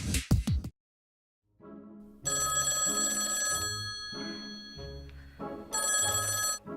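Telephone ringing twice, each ring about a second long with a pause between, after a short stretch of music fades out and a moment of silence.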